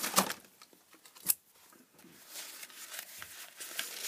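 A light tap just after the start and a sharper click about a second in, then a sheet of paper rustling as it is brought across the bench, getting louder near the end.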